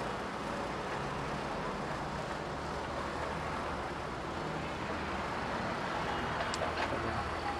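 Steady road-traffic and engine noise, with a few light clicks near the end.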